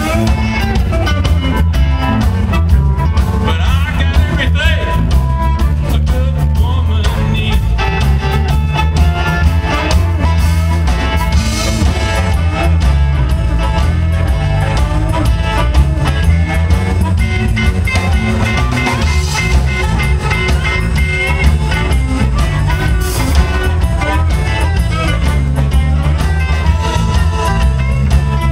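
Live electric blues band playing: electric guitar, electric bass and drum kit, with an amplified harmonica.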